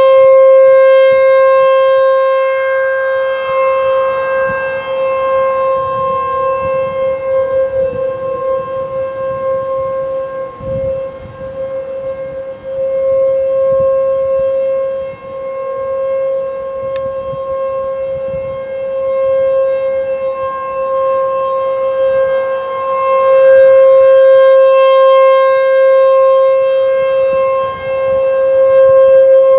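Outdoor warning siren of the Limerick nuclear power plant's emergency siren system, holding one steady tone that swells and fades in loudness several times.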